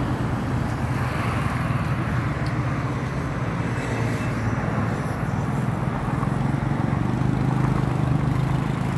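Steady road traffic noise from car engines and tyres, with a low engine hum that swells a little near the end.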